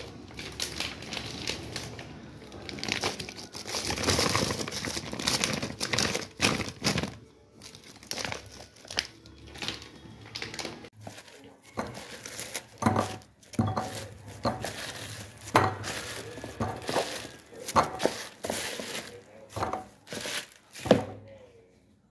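Clear plastic bag crinkling and rustling as sun-dried croaker are handled in it, densest in the first third. In the second half come separate sharp knocks and soft thuds as the fish are set into a ceramic bowl.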